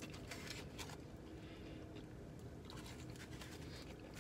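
Faint chewing with small scattered clicks and rustles as fingers pick food out of a styrofoam take-out container.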